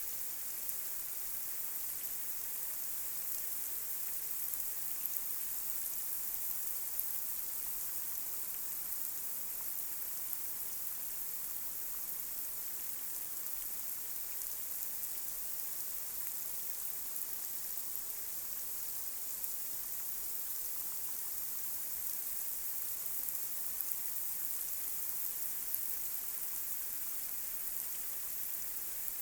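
Light rain falling on a street: a steady high hiss with scattered small drop ticks.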